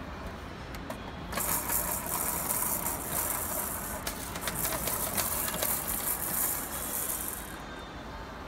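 A plastic baby toy rattling as a toddler shakes and handles it: a dense, shaking rattle that starts about a second in and stops shortly before the end.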